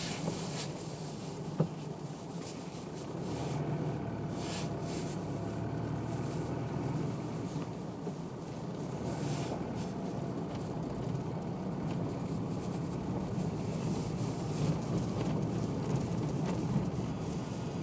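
A vehicle driving slowly along a gravel road: a steady engine and tyre rumble, with a single sharp click about a second and a half in.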